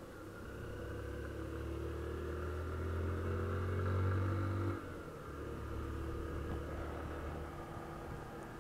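Honda CG 160 Fan motorcycle's single-cylinder engine pulling under throttle, rising in pitch and loudness, then the throttle closes abruptly about five seconds in and it runs on more quietly at a lower pitch.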